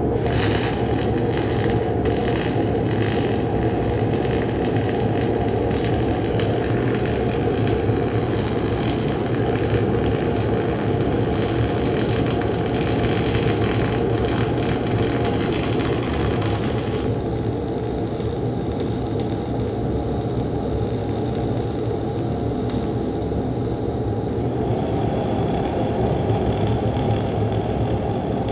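Twin-wire gas-shielded flux-cored (HyperFill FCAW-G) welding arc running continuously on a mechanized carriage during a vertical-up weld: a steady, dense crackle over a low hum. The crackle grows thinner about halfway through while the hum goes on.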